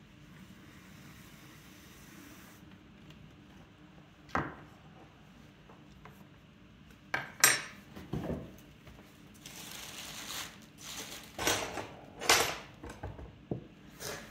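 Faint scraping of a loop trimming tool on leather-hard terracotta clay, then a run of clattering knocks and clinks as hard tools are handled and set down, the loudest about seven seconds in.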